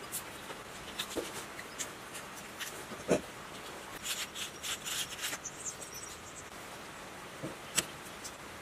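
Small hand tools working on the copper-wound field coils of an electric motor stator: scattered light taps and clicks, a louder knock about three seconds in, and a spell of quick scraping about four seconds in as a utility knife scrapes at the wire leads. A sharp click comes near the end as pliers work the leads.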